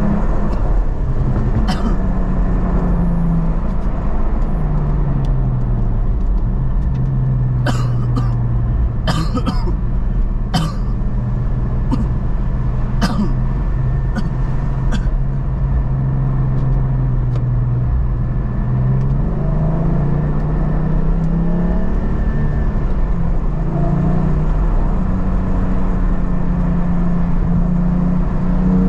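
Porsche 718 GT4's flat-six engine heard from inside the cabin over road noise on a wet surface. It settles from a higher note to a low steady drone through the middle, then rises in steps near the end as it pulls again. A handful of sharp clicks come in the first half.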